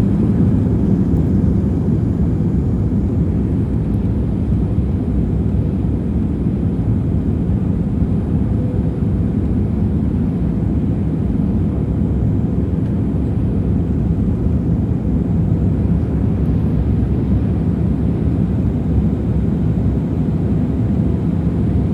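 Airbus A320-200 airliner's jet engines during take-off, a steady low rumble that holds even without rising or falling.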